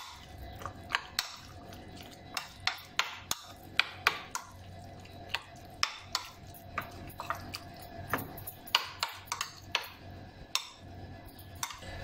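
A metal spoon stirring a wet filling in a bowl, clinking against the bowl's side in irregular taps, two or three a second.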